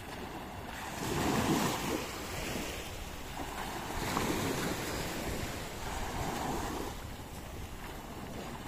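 Small waves breaking and washing up a sandy beach, swelling and fading every two to three seconds, with wind buffeting the microphone.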